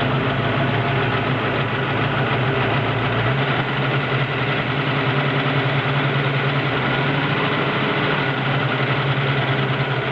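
Warm 331 stroker V8 idling steadily with a fast, even ticking from the valvetrain lifters, which the owner suspects may be excessive valvetrain noise.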